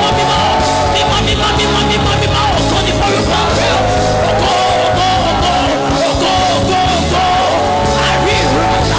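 Live gospel worship song: several singers singing impassioned held notes into microphones over band accompaniment.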